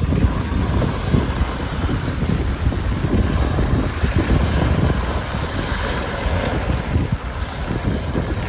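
Strong wind buffeting the microphone with a gusty low rumble, over the steady wash of wind-driven lake waves breaking on the shore.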